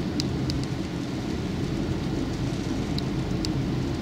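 Inside a Toyota Prius (50 series) driving on a wet road: a steady low rumble of tyres and road noise, with a few light ticks of raindrops on the car.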